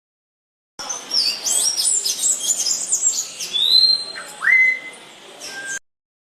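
Songbirds chirping and whistling: a quick jumble of high chirps with a few longer whistles that slide up and then hold. It starts about a second in and cuts off sharply near the end.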